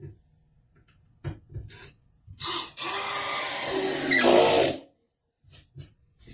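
Power drill driving a screw into wood: a short blip, then about two seconds of steady running that changes pitch as it tightens, with a few light knocks of handling before and after.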